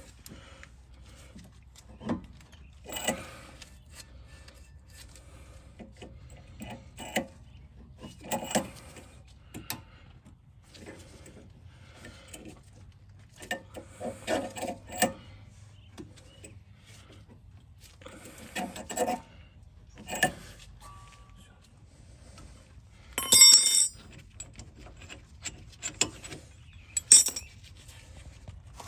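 Intermittent metallic clinks, rattles and scrapes of hand tools and metal parts being handled during a brake job. The loudest is a ringing metal clatter about 23 seconds in, followed by a sharp clink a few seconds later.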